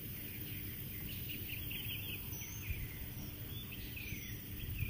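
Outdoor ambience: small birds chirping repeatedly in short falling notes over a low steady rumble of background noise.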